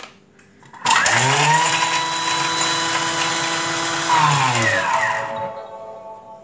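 Thermomix motor spinning up to speed 10 with a rising whine, running steadily for about three seconds while the blades chop fresh coriander, parsley and a garlic clove, then winding down with a falling whine.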